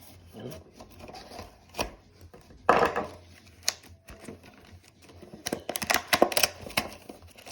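Plastic retail packaging of a Streamlight TLR-6 weapon light being worked open by hand: scattered clicks, crackles and rubbing. A louder rasp about three seconds in, and a quick run of clicks and crackles near the end.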